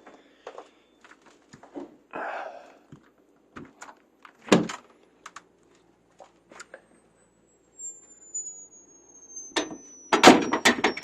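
Scattered clicks and knocks of handling, one heavier thump about four and a half seconds in, then from about ten seconds in a run of loud knocks and rattles as a stuck door is pushed and pulled. The door is one that he suspects is frozen shut.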